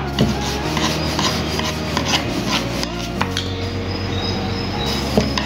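Wooden rolling pin rolling thin dough over a bamboo board, a rough rolling sound with irregular light knocks of the pin and hands against the board.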